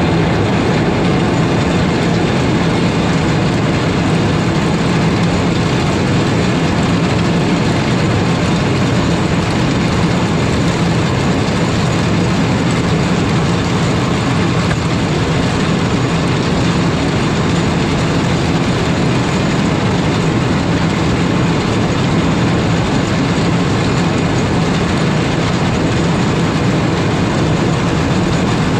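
Caterpillar 140M3 motor grader's diesel engine working steadily under load while its blade, fitted with triangle-toothed bit boards, scrapes and shatters ice off the road surface; a continuous engine drone mixed with grinding scrape.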